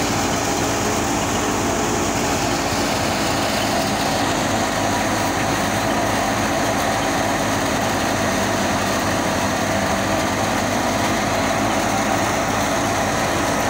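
Wheat thresher driven by an NH Ghazi 480 tractor, running steadily under load as it threshes wheat: the tractor's diesel engine and the thresher's spinning drum and fan make one continuous mechanical din.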